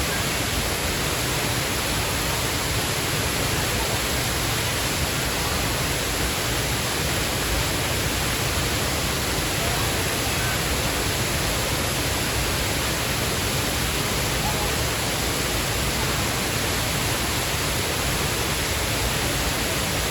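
Waterfall: falling water making a loud, steady, even rushing noise that does not change.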